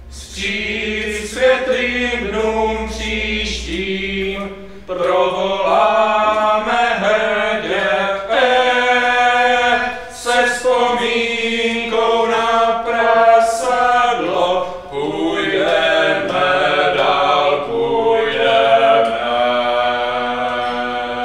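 Several men singing together in harmony, a slow chant of long held notes with little or no instrumental backing.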